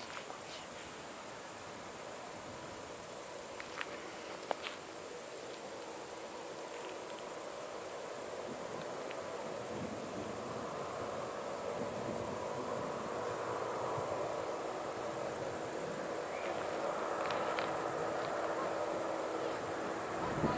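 Crickets chirring in one steady, high-pitched drone, with a soft low noise swelling behind them in the second half and a couple of faint clicks about four seconds in.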